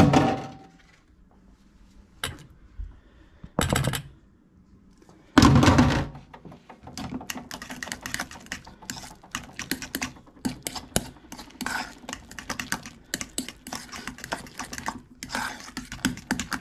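Metal fork stirring chopped egg whites into mayonnaise-and-yolk deviled-egg filling in a metal mixing bowl: rapid, irregular clicking and scraping of the fork against the bowl for the last ten seconds. Before that, a few separate knocks and one loud clatter about five seconds in.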